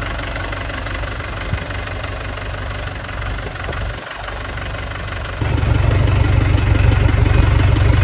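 Mahindra 475 DI tractor's diesel engine running steadily. About five seconds in, the sound gets suddenly louder and deeper.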